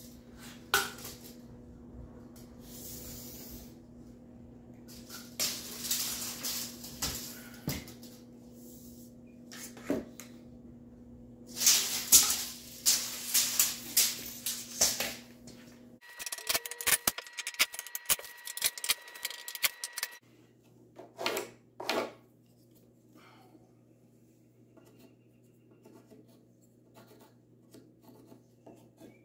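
Scrap lumber and tools being worked while framing: wood rubbing, scraping and knocking in irregular bursts. The sound changes abruptly twice, with a short stretch of rapid clicking over a steady whine in between.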